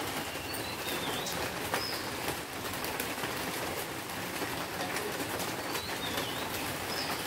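Chalk tapping and scraping on a blackboard as a word is written, over a steady background hiss. A few faint, short, high bird chirps come through now and then.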